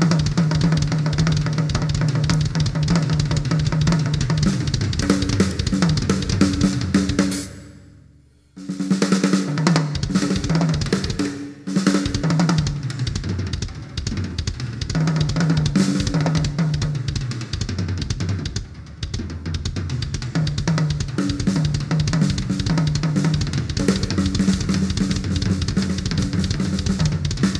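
Acoustic drum kit solo: fast, dense strokes across the bass drum, snare, toms and cymbals. About eight seconds in the playing stops for a moment, then comes back in suddenly at full force.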